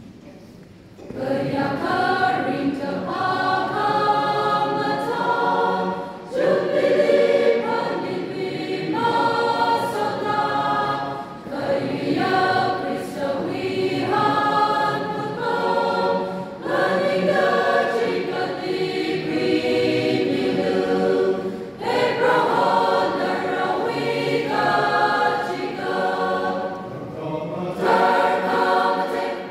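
Mixed choir of men's and women's voices singing together in parts, coming in about a second in and going on in phrases broken by short pauses every five seconds or so.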